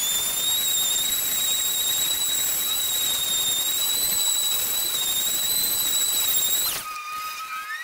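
Electric random orbital sander running with a steady high whine while sanding the face of an end-grain jarrah and karri cutting board. About seven seconds in it winds down in pitch and stops.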